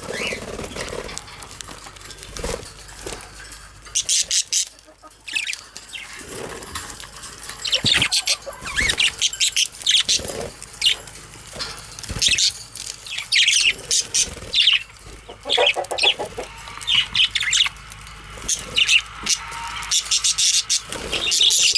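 Budgies bathing in grass: repeated bursts of wing fluttering and rustling blades of grass, in spells of a second or two, with short budgie chirps among them.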